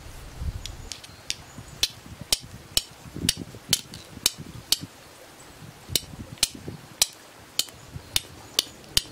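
A steel fire striker scraped sharply again and again against a fire starter held under char cloth, throwing sparks to light it. The strikes come about two a second, with a short pause about halfway through.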